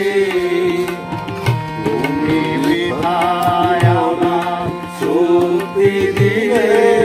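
A Bengali patriotic song sung to harmonium and tabla: a voice sings a bending melody over the harmonium's held chords, while the tabla plays deep bass strokes and sharp treble strokes.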